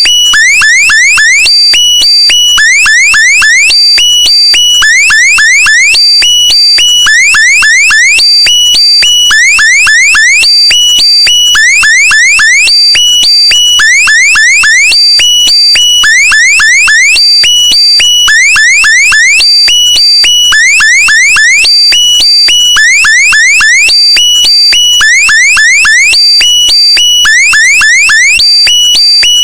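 Electronic alarm sound effect: a loud, quick run of rising chirps over a high steady tone, repeated at an even pace.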